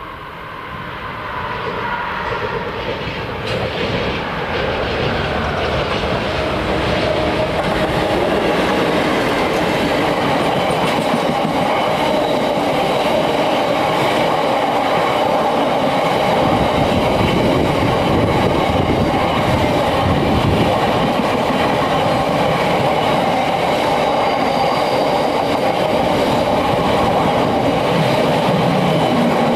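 Class 66 diesel-hauled freight train passing close by, its wagons rolling over the rail joints with a clickety-clack. It grows louder over the first several seconds, then holds at a steady, loud rumble.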